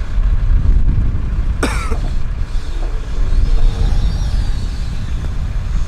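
Heavy wind buffeting the microphone despite a furry windscreen, a loud rumble throughout. A single sharp, brief sound cuts through it about a second and a half in.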